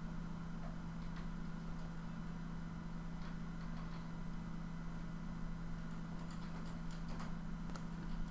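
Steady low electrical hum with a faint background hiss, and a few faint ticks scattered through it.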